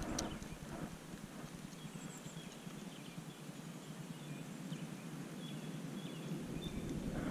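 Quiet outdoor ambience: a few sharp clicks right at the start, faint short high chirps scattered through the middle, and wind buffeting the microphone that dies away early and builds again near the end.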